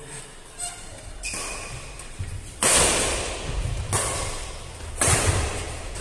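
Badminton racket strings striking a plastic shuttlecock in a doubles rally: about five hits spaced a second or so apart, the loudest about halfway through and again about a second before the end, each ringing on in the echo of a large hall.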